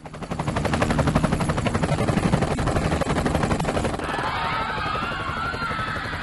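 A fast, even, rhythmic chopping clatter, like a helicopter's rotor, for about four seconds. Then wavering, gliding whistle-like tones come in over a lighter rumble.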